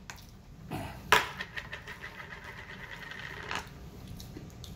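A sharp click, then a small motorised device whirring steadily with a high hum for about two and a half seconds before cutting off.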